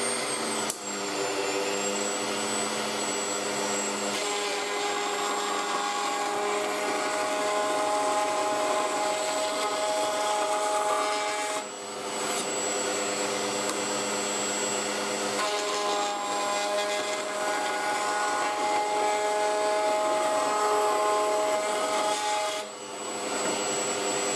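Table-mounted wood router running steadily at full speed with a high whine while wooden strips are fed past the bit to lightly chamfer their edges. The cutting changes the sound over two long passes, each ending in a brief dip.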